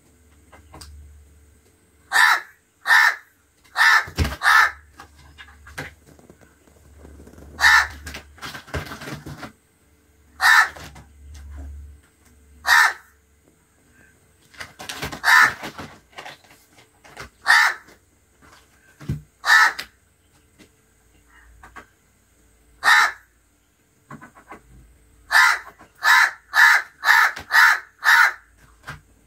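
House crow cawing: harsh single caws, four close together early, then one every few seconds, and a quick run of about six near the end.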